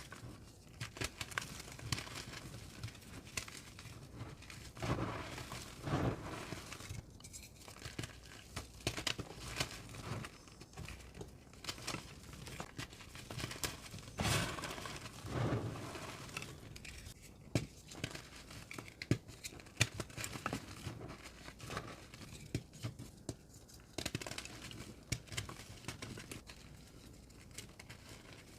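Gym chalk reforms being crushed and crumbled by hand: a continuous run of crisp crackles and crunches, with heavier crushing about five seconds in and again around fourteen to sixteen seconds.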